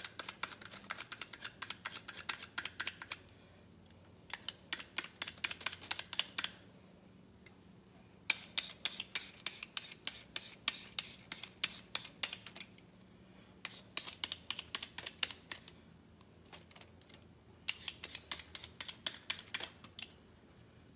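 Hand vegetable peeler scraping the skin off a large raw potato in quick strokes, several a second, in runs of a few seconds broken by short pauses.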